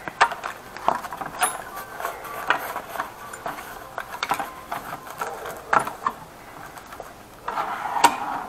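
A spade bit set in a cloth tool roll being handled and pushed into a metal tool chest drawer, with scattered clinks, knocks and rustling. Near the end a drawer slides on its runners with a short scraping rush.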